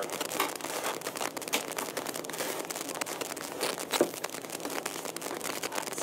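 Computer-part packaging being handled: plastic wrapping and cardboard boxes rustling and crinkling, with many small clicks and a knock about four seconds in.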